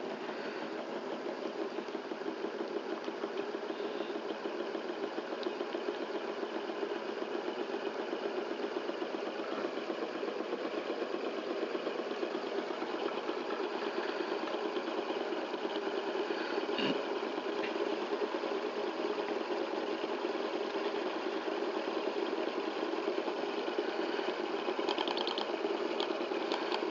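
Small FA.MT.047 model Stirling engine with a glass piston, running steadily on its alcohol burner: a fast, even beat from the piston and crank linkage.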